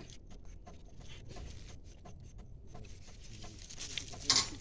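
Faint rustling and small clicks, with one brief loud rustle, like a hand brushing the microphone, about four seconds in.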